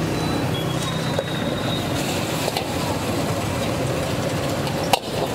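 Thick red sauce bubbling and sizzling in a large iron wok as a metal ladle stirs and scrapes it, over a steady rushing noise. A sharp clank of the ladle against the wok comes near the end.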